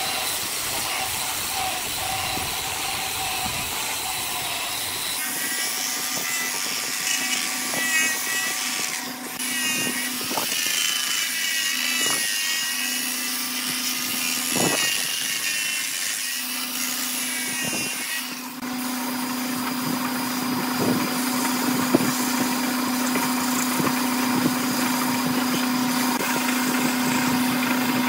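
Wood lathe spinning an epoxy resin vase while a handheld rotary sander with a foam pad is pressed against it, the sander's whine wavering as it works. Later there is a steadier hum of the lathe.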